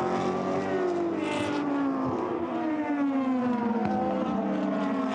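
GT500 race car's V8 engine running at high revs, its note falling slowly and steadily in pitch over several seconds.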